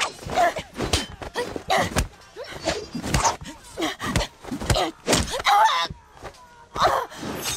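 Film fight sound effects: a rapid series of swishing strikes and hits, mixed with women's short fighting cries and grunts.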